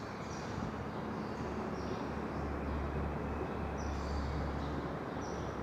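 Whiteboard marker squeaking in short strokes as words are written, over steady room noise with a low hum.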